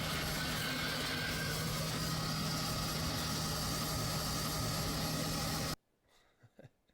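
Steady engine noise, a constant low hum under a hiss, cutting off abruptly near the end.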